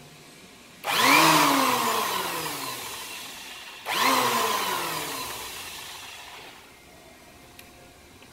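Handheld electric planer switched on twice, about three seconds apart, without a soft starter: each time the motor jumps to full speed at once with a hard kick, then whines down in falling pitch as it coasts after the trigger is let go.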